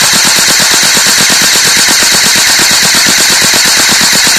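Battery-powered toy AK-47 BB gun firing on automatic: a loud, rapid, even clatter of its electric mechanism cycling, many strokes a second, without a break.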